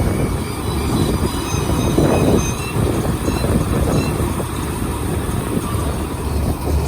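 Paddy combine harvester running: a steady engine drone under an irregular rattling from the machine, with faint short high squeaks.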